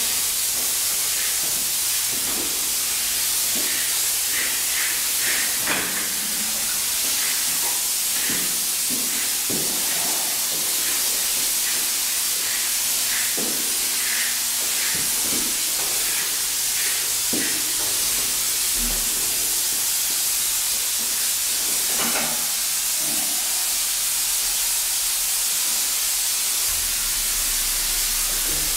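Handheld spray gun hissing steadily as it mists liquid disinfectant from a hose-fed tank, with a few light knocks scattered through.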